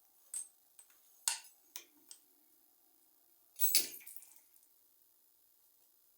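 Metal clinks from tools and fittings being worked while an old bathroom tap is removed: a few sharp clinks in the first two seconds, then a louder clatter about three and a half seconds in.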